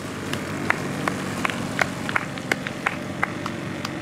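Gas engine of a large RC Piper J-3 Cub model running at a steady low idle as the plane taxis on grass. A scatter of sharp, irregular clicks sits over the engine sound.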